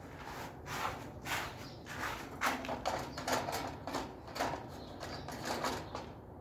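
Birds pecking at scattered feed, a run of irregular quick taps and scratches.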